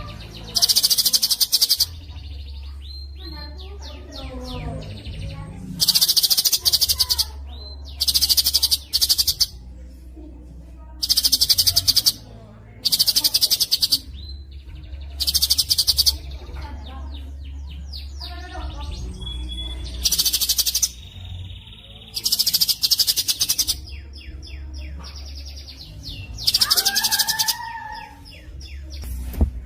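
A songbird singing very fast, tightly packed high trills in bursts of about a second, about nine times, with softer chirps between the bursts. A steady low hum runs underneath.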